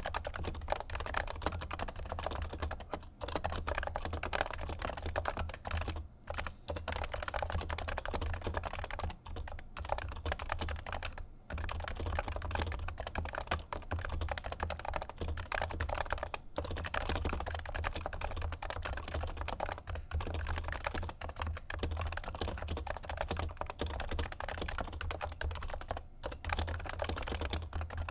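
Continuous typing on a Topre Realforce keyboard with silenced 55 g Topre electrostatic-capacitive switches: a dense, even stream of keystrokes with a few brief pauses.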